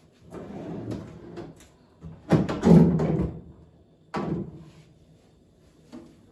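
Kitchen things being handled: a rustle, then a loud clatter, a sharp knock and a small knock, like cupboard, drawer or fridge parts being opened, moved and set down.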